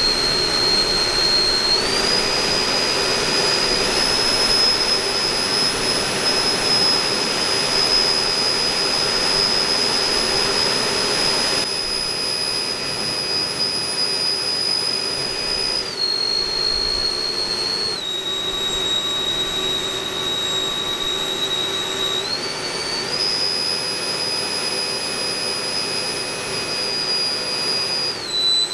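The twin Schübeler electric ducted fans of a large RC Boeing 777-9X model running on the test stand: a loud whine over rushing air. The pitch steps up and down several times as the throttle is changed.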